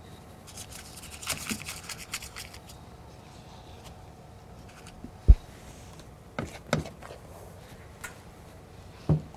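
Kitchen utensil scraping and tapping against bowls as frosting is portioned out, a quick run of scrapes and clicks early on, then a single heavy thump and a few separate knocks of utensil or bowl on the counter.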